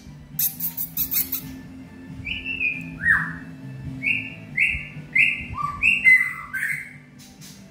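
White-rumped shama singing in its cage: a string of loud, clear whistled notes, many swooping downward, with a quick run of sharp clicks about half a second in.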